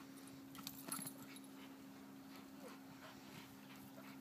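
Faint dog sounds: a few soft whines from a dog engaged in bite work, with a light knock about a second in, over a steady low hum.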